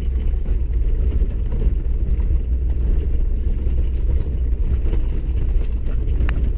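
Steady low rumble of a vehicle's tyres and engine, heard from inside the cabin, as it drives slowly over rough, rutted, packed snow and ice. A few faint ticks sound over the rumble.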